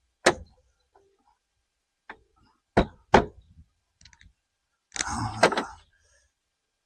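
Plastic body panels being pushed and knocked into place on a Can-Am Spyder, with sharp knocks about a quarter second in and twice near three seconds, then a scraping rattle of plastic about five seconds in.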